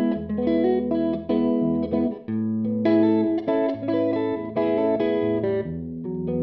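Fender electric guitar played through an amp and cabinet simulation set to a hall room sound: a phrase of picked chords and single notes that ring on briefly and change every half second or so.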